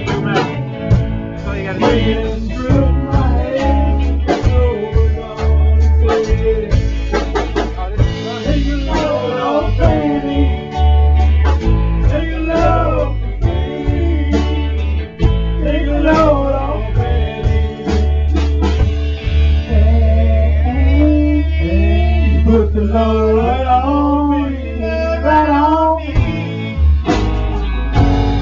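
Live band jamming: electric guitars and a drum kit over a heavy low bass, with a man singing over them.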